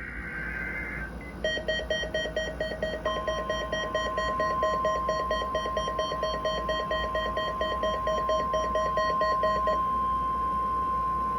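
NOAA Weather Radio warning alarm test: the steady 1050 Hz alert tone sounds from about three seconds in and holds. Under it, a fast pulsing electronic alarm beep starts about a second and a half in and stops near the end.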